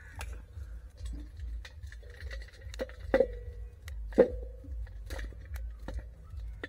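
Small elephant foot yam cormels being broken off a harvested clump and dropped into a metal bowl: a series of irregular knocks, several with a short metallic ring, the loudest about four seconds in, among rustling of dry roots and soil.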